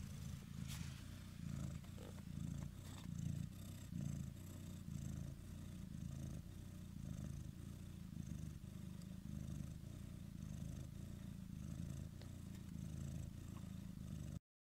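A mother cat purring while nursing her newborn kittens. It is a low, steady purr that swells and fades with each breath, and it cuts off abruptly near the end.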